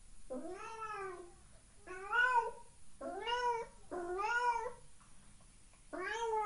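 Domestic cat meowing five times, each meow under a second long, rising then falling in pitch, with short pauses between; the last starts near the end.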